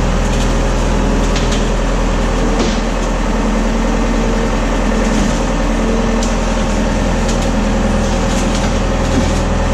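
Bobcat skid steer's engine running steadily and loud, heard close up from the operator's cab, as the machine lifts a load on its forks. A few light knocks sound over the engine.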